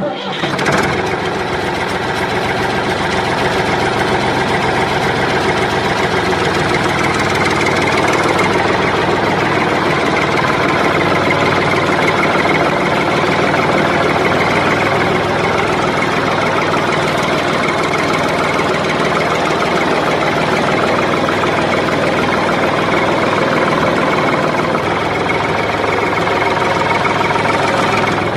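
An engine idling steadily, a dense even running noise with no change in speed, that starts abruptly and cuts off just as abruptly.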